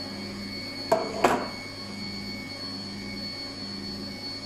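Electric stand mixer running steadily on a low speed, beating cake batter. About a second in come two sharp knocks, a metal cake tin set down on a wooden worktop.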